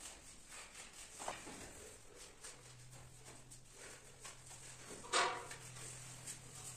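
A few short animal calls, the loudest about five seconds in, over a low steady hum that starts about two and a half seconds in.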